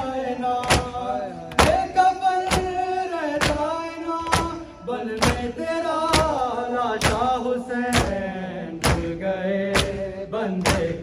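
Men's voices chanting a noha, a mourning lament, over the sharp hand-slaps of matam chest-beating, about one strike a second in a steady beat.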